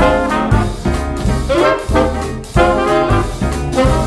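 Background music: an upbeat swing-style tune led by brass, with a regular beat and a bass line.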